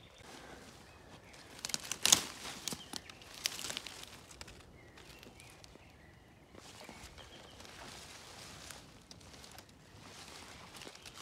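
Footsteps and rustling of leaves and grass as someone pushes through dense, wet undergrowth. A cluster of sharp crackles comes about two seconds in and is the loudest part. Softer brushing of plants follows, as a hand parts the leaves near the end.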